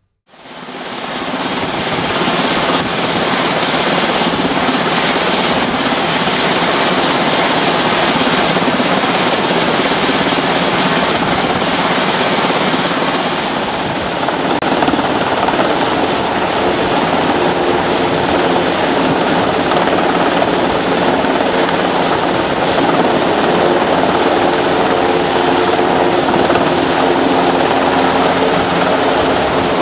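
Helicopter's turbine engines and main rotor running loudly as it lifts off from the helideck into a hover. A thin high turbine whine steps up in pitch about halfway through.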